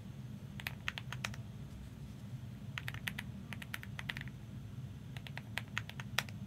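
Typing on a computer keyboard: several short runs of quick keystroke clicks separated by pauses, over a steady low hum.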